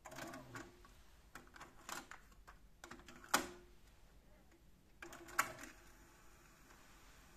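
Akai GX-7 cassette deck's transport buttons and mechanism clicking as it is operated: a string of small clicks, the cassette door opening with a sharp clunk about three seconds in and shutting with another clunk a couple of seconds later.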